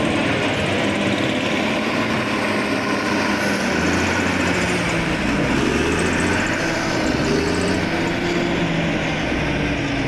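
Large wheel loader's diesel engine running under load, its pitch rising and falling as it revs.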